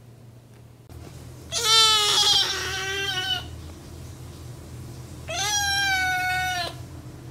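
Young black kitten meowing loudly twice: two long drawn-out cries, the second higher-pitched. It is a hungry kitten crying for more food.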